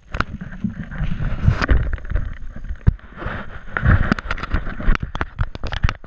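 Handling noise from an action camera held in the hand: rubbing and rumbling against the microphone as the camera is swung round, with wind on the microphone, and a quick run of sharp clicks and knocks in the last two seconds.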